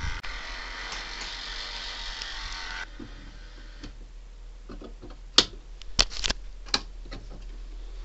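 The rotator motor of a homemade mini tornado siren running with a steady grinding buzz, then cutting off suddenly about three seconds in as it is switched off. A few sharp clicks follow.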